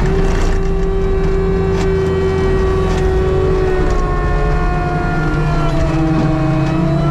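Skid steer's diesel engine running hard with its hydraulic forestry mulcher head spinning: a steady low rumble under several whining tones that drift slowly up and down in pitch, with a few light knocks of debris.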